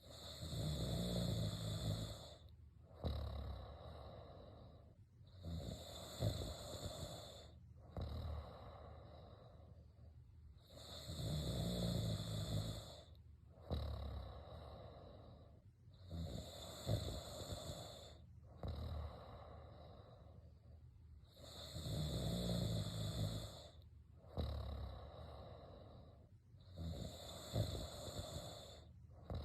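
A person snoring in a steady rhythm: six loud snores about five seconds apart, with a softer breath between each.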